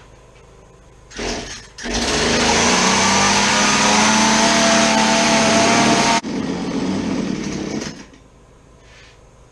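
Two-stroke chainsaw engine: a short sputter about a second in, then running loud and steady at high throttle for about four seconds. It drops back abruptly and runs lower for about two seconds before dying, because it will not hold an idle, which the mechanic thinks may come from the carburettor's missing idle adjustment screw.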